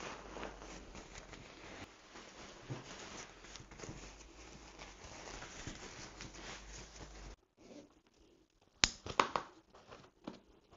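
Nylon rucksack fabric rustling and scrunching as the packed bag is pressed down and handled. The sound stops abruptly partway through, and then come softer rustles and a sharp click about nine seconds in.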